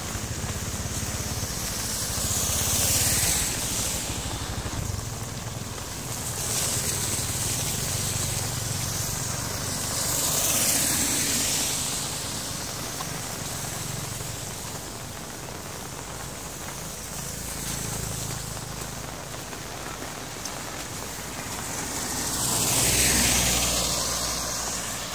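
Vehicles passing one by one on a wet road, their tyres hissing on the water. Three passes swell up and fade, about 3, 10 and 23 seconds in. The last and loudest is a car.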